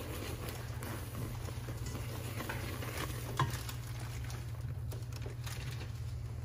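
Spatula stirring thick melted marshmallow and butter in a stainless steel pot: soft, sticky scraping with a small click about three and a half seconds in, over a steady low hum.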